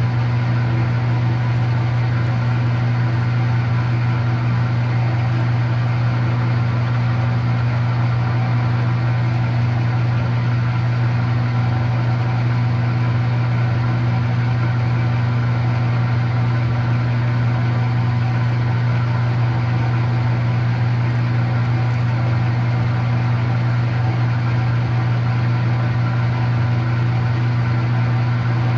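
Metal-working shop machine running steadily under its electric motor with a constant low hum and a steady whine above it, while it works its way through a piece of metal.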